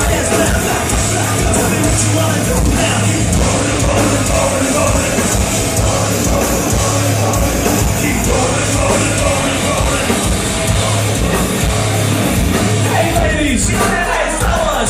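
Rap-metal band playing live and loud: heavy distorted guitar, bass and drums, with a singer's voice over the top.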